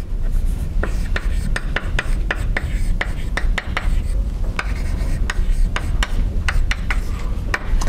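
Chalk writing on a blackboard: an irregular run of short taps and scratchy strokes, over a steady low hum.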